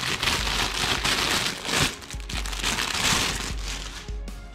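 Clear plastic packaging bag crinkling and rustling in irregular bursts as a toy rifle is pulled out of it, easing off near the end.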